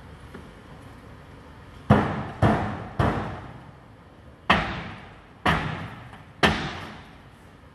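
Six loud, sharp blows, each trailing off in an echo: firefighters striking the burnt-out car. The first three come about half a second apart and the next three about a second apart.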